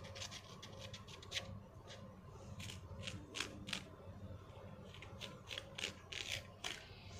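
Sharp utility-knife (cutter) blade shaving thick callused skin off the sole of a foot: a string of short, irregular scraping strokes.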